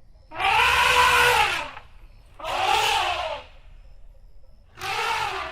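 Asian elephant trumpeting: three blasts, each rising then falling in pitch, the first and longest lasting over a second and the last cut short.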